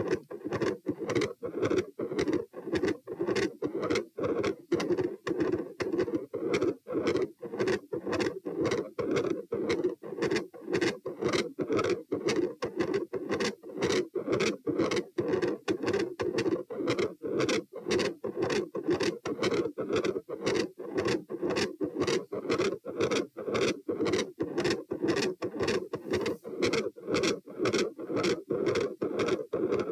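Heart sounds through a stethoscope at the pulmonic area: a fast, regular lub-dub with a loud second heart sound (S2). A steady rushing murmur fills the gaps between beats; the recordist calls it machinery-like.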